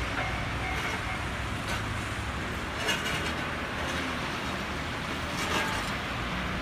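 Busy road traffic at a railway level crossing, a steady mix of car and truck engines and tyres. A Japanese crossing alarm dings faintly on and off and stops about a second in. There are a couple of brief knocks later on.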